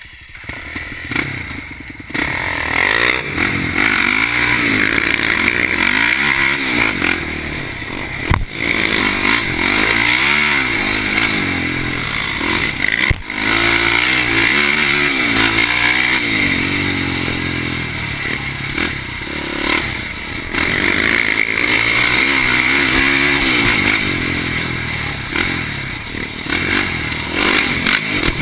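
2004 Polaris Predator 500 quad's single-cylinder four-stroke engine under way, getting loud about two seconds in. The pitch climbs and drops again and again as the throttle is worked and gears are shifted, with rattle from the machine, heard from a chest-mounted camera on the rider.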